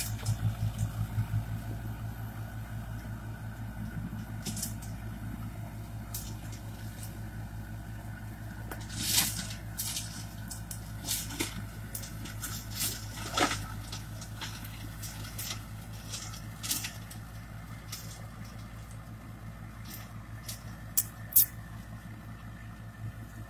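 Tractor engine running steadily under load, driving a Zanon TMR heavy reversible mulcher that shreds brush and branches, with sharp cracks every few seconds as wood is struck. The drone grows slightly fainter as the tractor moves away.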